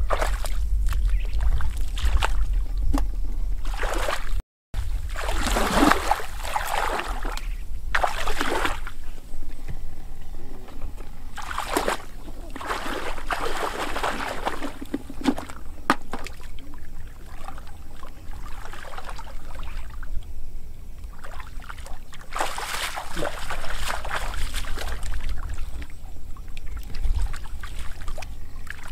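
Shallow muddy water sloshing and splashing as a man wades through it and gropes in the mud with his hands, in repeated surges of about a second each over a steady low rumble. The sound cuts out briefly about four seconds in.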